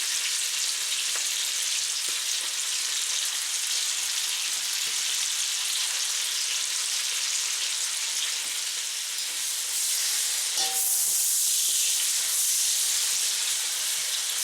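Onion rings and apple slices frying in rendered pork belly fat in a hot pan, a steady sizzle. About ten and a half seconds in, the sizzle gets louder and brighter.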